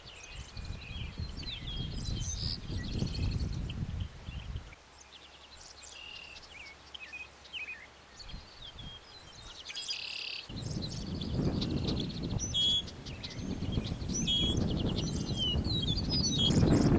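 Several birds chirping and singing, with low wind rumble on the microphone that drops away for a few seconds in the middle and then returns.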